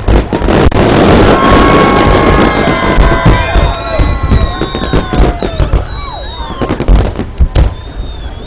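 Fireworks display: repeated booms of aerial shells bursting, with a dense crackle near the start. Several long, wavering whistling tones run over the booms through the middle.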